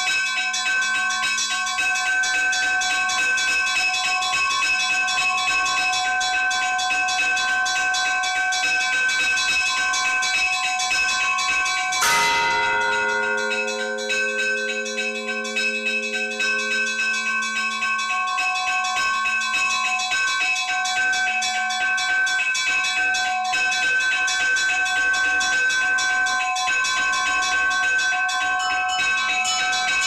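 Russian church bells ringing, heard close up: many bells sound together in steady, continuous chiming. About twelve seconds in, a heavier, deeper bell is struck once, and its hum fades away over several seconds.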